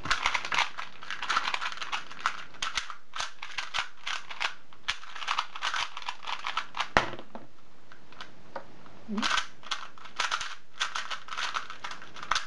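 Two 2x2 speedcubes, a YuPo and a LingPo, being turned fast in a timed solve: dense runs of quick plastic clicking and rattling. About seven seconds in comes a single sharp slap, typical of hands coming down on a speedcube timer to stop it.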